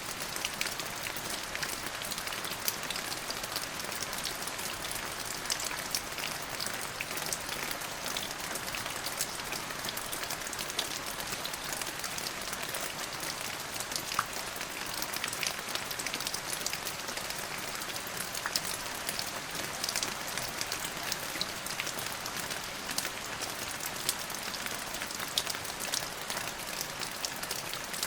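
Steady rain falling, with many individual drops heard as small ticks over an even hiss.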